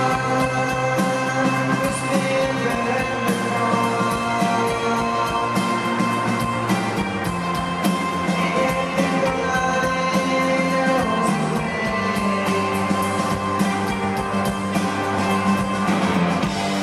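Live rock band playing, heard from the crowd: electric guitars, bass, drums and keyboards. The held chord changes about seven seconds in and again about twelve seconds in.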